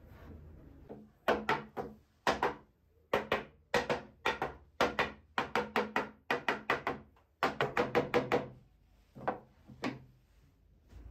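A mallet knocking a wooden shelf board into place against a cabinet's upright: about two dozen sharp knocks in quick runs of two to five, with short pauses between runs.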